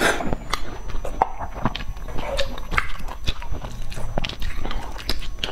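Close-miked mouth sounds of a person chewing a mouthful of rice and braised vegetables: a quick run of small wet smacks and clicks. A metal spoon is also worked through the rice on the plate.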